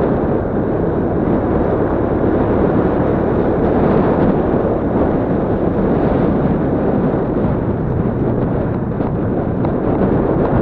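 Yamaha Crypton-X underbone motorcycle being ridden, its engine running steadily under heavy wind buffeting on the microphone.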